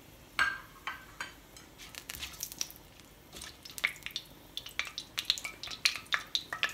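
Whole spices crackling in hot oil in a pan while a silicone spatula stirs them: a scatter of short pops and clicks, thicker in the second half.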